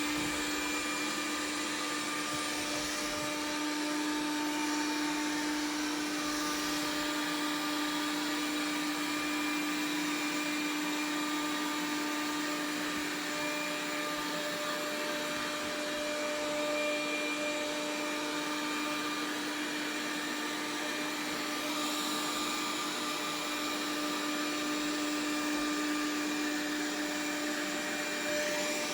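Dreame L10s Ultra robot vacuum running steadily: a constant motor hum over an airy hiss.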